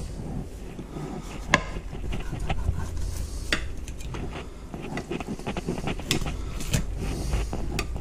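Kitchen knife scoring slits in a whole scaled redfish in a glass baking dish: light scraping with a handful of sharp clicks as the blade and dish knock on the glass, the loudest about a second and a half in.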